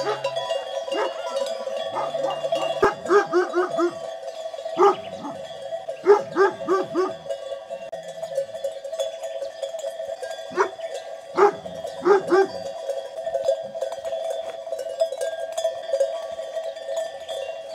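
Many bells on a grazing flock of sheep clanking and jingling together without a break, with a few short runs of louder, quicker strikes.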